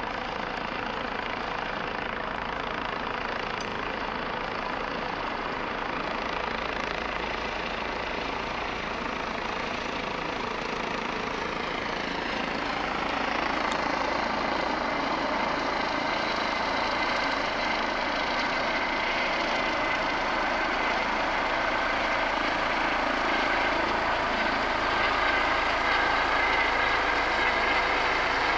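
Air-ambulance helicopter coming in to land: steady rotor and turbine noise that grows louder as it descends and approaches. A steady high whine becomes more prominent in the second half.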